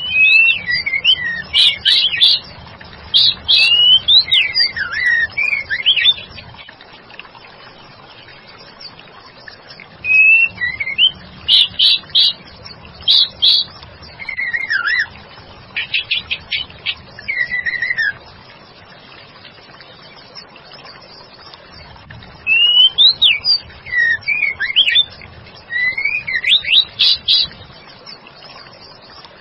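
White-rumped shama calling, a female's call by the caption, in three bouts of quick rising and falling whistled notes with pauses between: a lure call meant to make male shamas answer.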